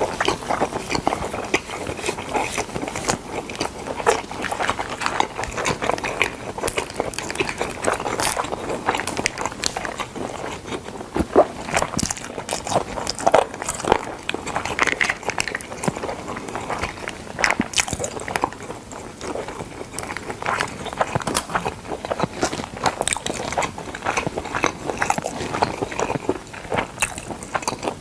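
Close-miked eating of smoked chicken: biting and chewing with many irregular short wet clicks and smacks.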